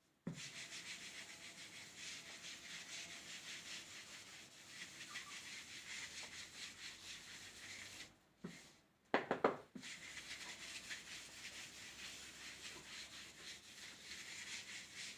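Faint writing strokes: the steady, scratchy rubbing of a pen on a writing surface, in rapid short strokes, pausing briefly about eight seconds in. A short, louder voice sound comes just after the pause.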